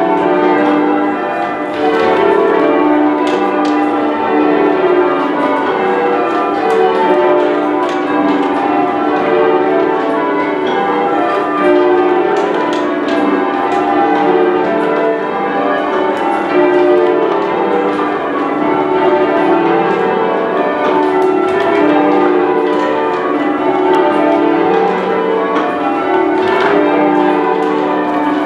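Manchester Cathedral's ring of ten church bells being change-rung: a continuous, loud sequence of bell strokes following one another at even pace, each one ringing into the next.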